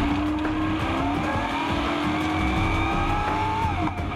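Off-road race truck's engine heard from inside the cockpit, its pitch rising steadily as the truck accelerates away from the start line. Near the end the pitch drops sharply at a gear change and begins to climb again.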